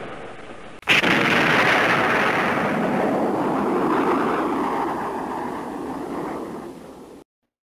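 Explosion sound effect: a sudden blast about a second in, then a long rumble that slowly fades before cutting off abruptly near the end.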